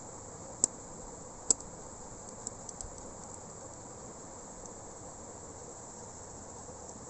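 Steady high-pitched chirring of crickets in the background. A few sharp clicks come over it, about half a second and a second and a half in, then lighter ticks a little later, as a crayon is shaved with a craft knife.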